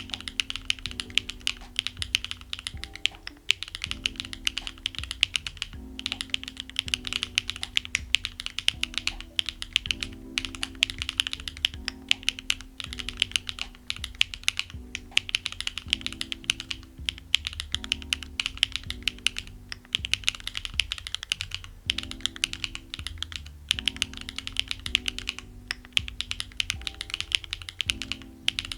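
Continuous fast typing on a Neo Ergo split mechanical keyboard built with HMX Yogurt switches, a polycarbonate plate and case foam: a dense run of keystroke clacks. Soft background music plays underneath.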